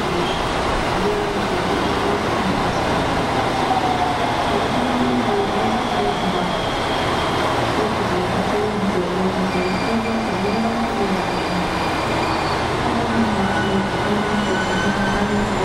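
A JR West 223 series electric train pulling into the platform and slowing to a stop. Its running noise is a steady rumble with wavering tones through it.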